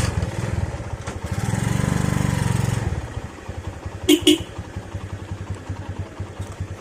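Single-cylinder four-stroke motorcycle engine pulling away under throttle, then settling to a steadier, quieter run after about three seconds. Two short horn beeps sound about four seconds in.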